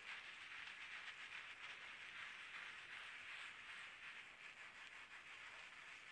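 Faint, squishy rubbing of a wet konjac sponge worked in circles over the skin of the face.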